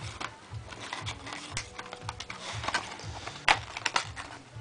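Plastic packaging being handled and pried at: scattered clicks and crinkles, with one sharp click about three and a half seconds in, over background music.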